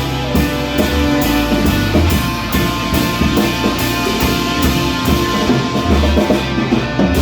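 Rock music with electric guitar, bass and drum kit, playing at a steady beat.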